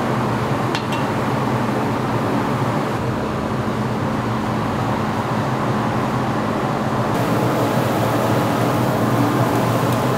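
Steady, loud roar and hum of a grill kitchen around a charcoal and wood fish-grilling pit, with two sharp clicks under a second in.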